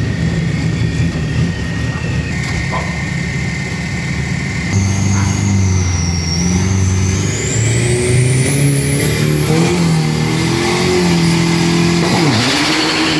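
Drag-race pickup's 3,000 cc turbo engine running and being revved in steps. A high whistle climbs in pitch from about five seconds in.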